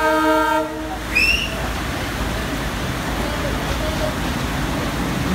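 Sri Lanka Railways diesel locomotive's horn blowing, cutting off under a second in, followed by a short rising chirp. After that comes steady heavy rain hiss over the low rumble of the approaching locomotive.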